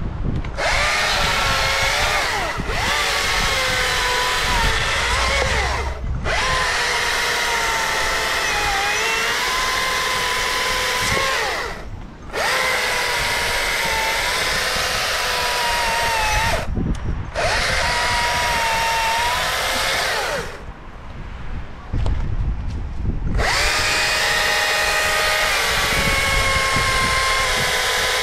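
STIHL MSA 220 C battery chainsaw running in about six runs of a few seconds each, its electric motor and chain making a steady high whine that stops briefly whenever the trigger is released. The pitch sags now and then as the chain is loaded cutting wood.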